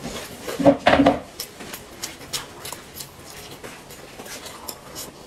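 Close-up eating sounds: chopsticks clicking against a porcelain rice bowl, with chewing and mouth noises. About a second in there is a brief louder sound with some pitch to it.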